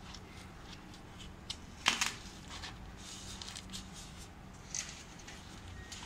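Hands handling the foam insulation around an air-conditioner pipe: scattered rustles and clicks, with one sharp loud click about two seconds in, over a faint steady low hum.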